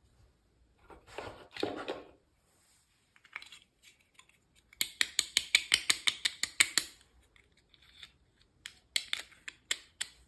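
Miniature toy packaging being unboxed by hand: a short rustle, then a fast run of sharp clicks, about six a second for two seconds, and a few more clicks near the end.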